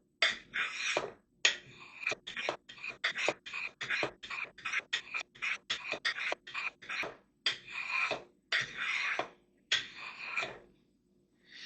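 A knife blade drawn in a series of about twenty quick strokes across a sharpener, giving a short, dry scrape on each pass. The strokes come about three a second through the middle and slow down near the end, the blade's edge being set on the sharpener.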